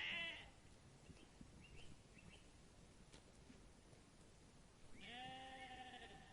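Sheep bleating: the end of one bleat at the start, then a quieter, drawn-out bleat about five seconds in. Faint short high chirps are heard in between.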